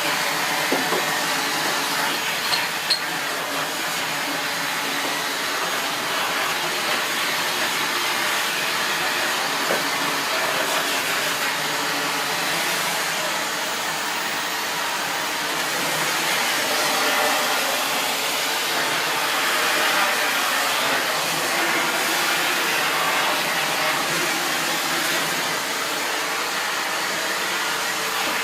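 SEBO Felix bagged upright vacuum cleaner running steadily, with a few small knocks in the first three seconds.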